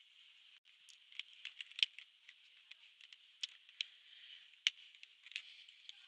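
Scattered light clicks and taps of plastic felt-tip markers being handled and picked up from a row, irregular and of uneven loudness, over a faint steady hiss.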